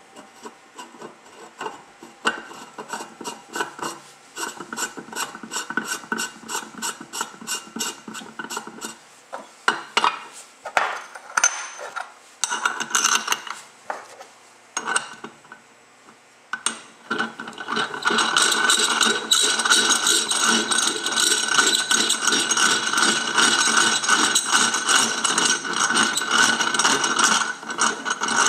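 Ratchet wrench clicking as it turns the nut on the threaded rod of a QRS spring compressor tool fitted to a Ski-Doo QRS driven clutch. Even clicks at about three a second at first, a few scattered clicks and knocks in the middle, then loud, fast, continuous ratcheting over the last ten seconds.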